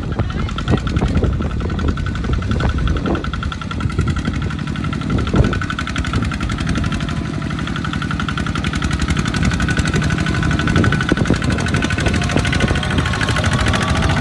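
Single-cylinder diesel engine of a two-wheel walking tractor running steadily with a fast knocking beat as it pulls a loaded trailer through mud, with the engines of the tractors following behind mixed in. A few sharp knocks come in the first few seconds.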